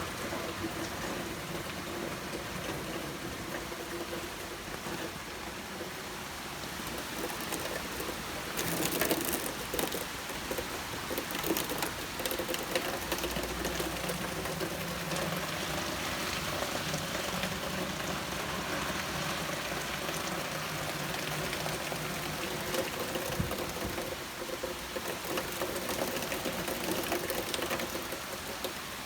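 Rain falling steadily, briefly louder about nine seconds in.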